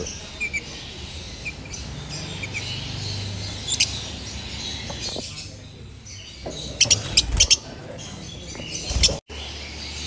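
Fischer's lovebirds chirping in short, sharp, high calls, a few scattered at first and a quick run of them about seven seconds in.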